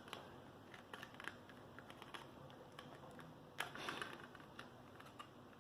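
Faint small clicks and taps of hands handling an AMD Ryzen 5 7600X processor and its packaging, scattered irregularly, with a slightly louder bit of handling noise a little past the middle.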